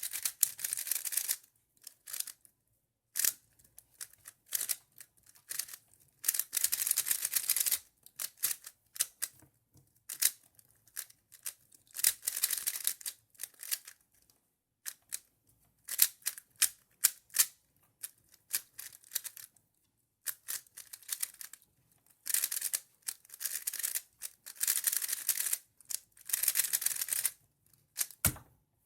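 Qiyi Thunderclap V3 M magnetic 3x3 speedcube being turned fast in a solve: bursts of rapid plastic clicking and clacking layer turns, some a second or two long, broken by short pauses.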